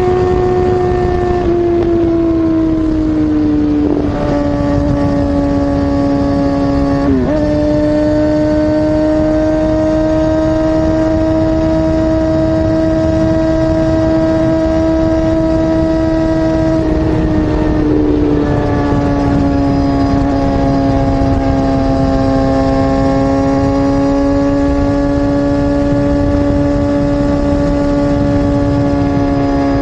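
Kawasaki Ninja ZX-6R 636's inline-four engine running at high revs through an SC-Project CR-T slip-on exhaust while riding. It holds a steady, high-pitched note that drifts slowly and drops sharply for a moment about four times, with a constant rush of noise underneath.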